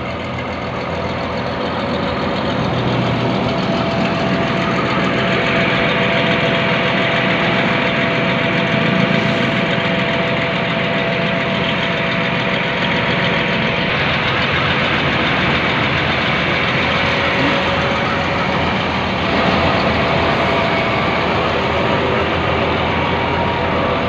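Combine harvester's diesel engine idling steadily close by, a continuous even clatter that holds at one pitch, a little quieter in the first couple of seconds.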